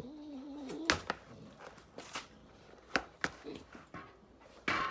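About half a dozen sharp knocks and taps as a fat-bike tire is worked off its rim and handled, the loudest near the end, after a short wavering whine at the start.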